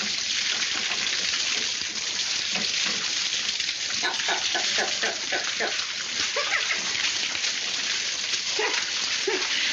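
Water gushing and spraying steadily from a leaking pipe, heard through an old film soundtrack. Short pitched yelps about four seconds in and again near the end.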